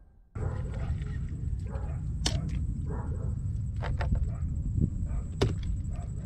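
A steady low rumble of wind on the microphone, with a thin steady high whine, starts about a third of a second in. Several sharp clicks and knocks come through it as a baitcasting rod and reel are handled in a small boat.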